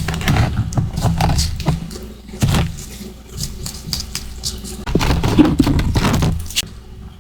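Close-up crunching and chewing of powdery freezer frost and ice chunks, crisp crackling bites with sharp snaps. There is a sharp crunch about two and a half seconds in, and a longer run of crunching from about five seconds in that stops shortly before the end.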